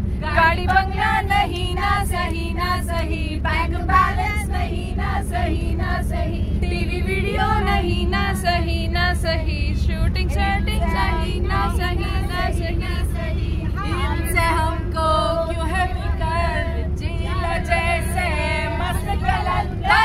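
A group of women singing a song together in unison, over the steady low rumble of a moving bus.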